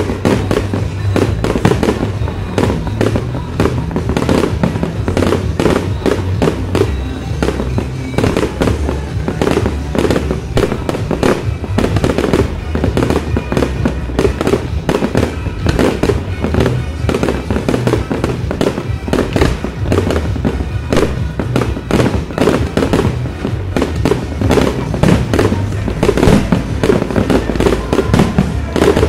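Fireworks display: a dense, unbroken run of rapid bangs and crackles as shells launch and burst.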